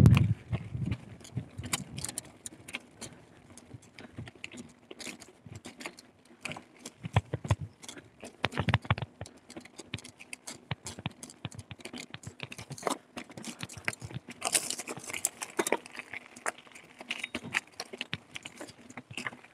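Carrera Hellcat mountain bike rattling and clattering down a rough trail: a dense, irregular run of clicks and knocks from the bike and its tyres on stony ground, with a heavy thump at the very start.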